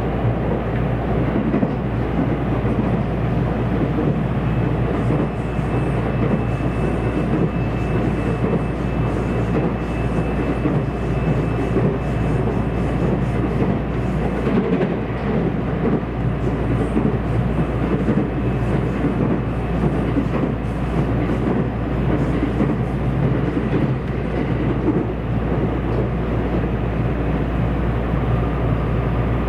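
Running noise inside a JR West 227 series electric train carriage: a steady rumble of wheels on rails, with a faint steady high tone through most of it.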